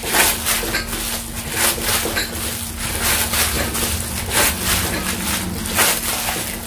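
Plastic wrap and plastic gloves crinkling and rustling in irregular bursts as a ball of dough is wrapped, over a steady low hum.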